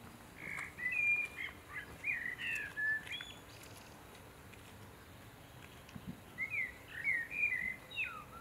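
A songbird singing two short phrases of quick, sliding whistled notes, the first starting about half a second in and the second about six seconds in.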